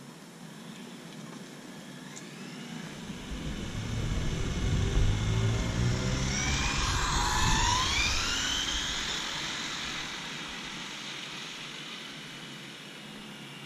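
Traxxas Slash 4x4 RC truck on a 3S battery making a high-speed pass: the whine of its electric motor and drivetrain builds as it approaches, is loudest in the middle with the pitch dropping as it goes by, then slowly fades away.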